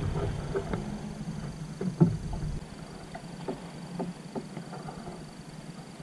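Small clicks and taps of fishing tackle and the plastic kayak being handled while a live bait fish is rigged, with one sharp louder knock about two seconds in. A low rumble of water and wind underneath drops away a little before halfway, and a faint steady high tone runs throughout.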